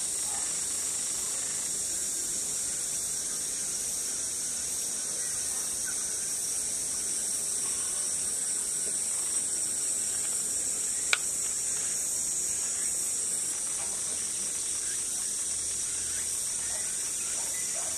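Steady, high-pitched chorus of insects, unbroken throughout, with one sharp click about eleven seconds in.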